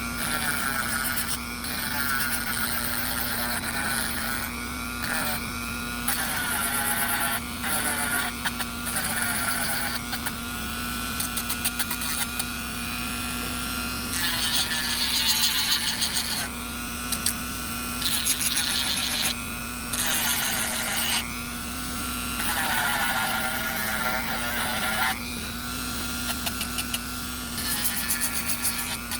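Dremel rotary tool sanding wood. Its whine dips and recovers in pitch several times as the sanding bit is pressed against the piece, with bursts of scratchy sanding noise.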